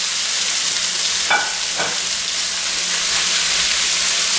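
Cubed raw chicken breast sizzling steadily in a hot non-stick frying pan as it starts to sauté, with two short scrapes of a spatula against the pan about a second and a half in.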